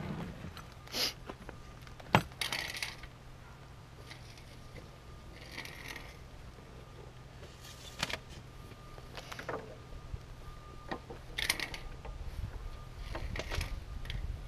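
A magnetic level lowered on a rope down a septic pipe, knocking and scraping against the pipe wall as it is worked up and down: a string of irregular clinks and scrapes, the sharpest click about two seconds in.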